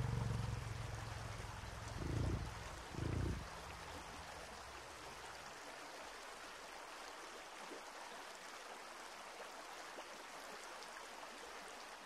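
Shallow river running over a rocky bed, a steady rushing. In the first few seconds a low steady hum and two short, loud low rumbles stand out over the water.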